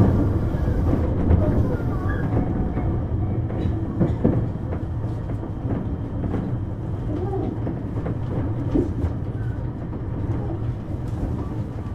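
Running noise heard inside a Tobu Tojo Line commuter train car: a steady low rumble of wheels on the rails and the running gear, with a few short knocks about a second and about four seconds in.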